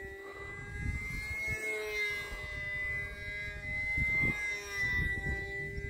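Small electric motor and propeller of an E-flite UMX Timber X RC plane whining steadily in flight, the pitch shifting slightly as the throttle changes, with wind buffeting the microphone.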